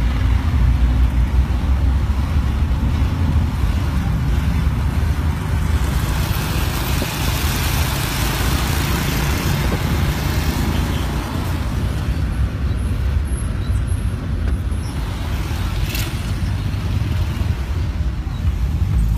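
Low engine and road rumble heard from inside a moving car in traffic. A broad hiss of tyres and passing traffic swells in the middle, and there is a single sharp click about sixteen seconds in.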